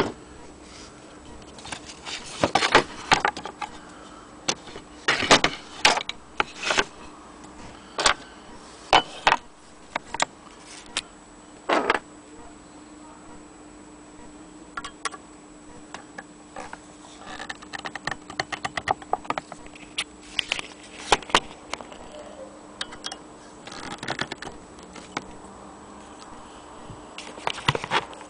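Irregular metallic clicks and clunks from the cast-iron hand-crank wheel and loose parts of a Willcox & Gibbs sewing machine being handled on a wooden base, some single and some in quick clusters, over a faint steady hum.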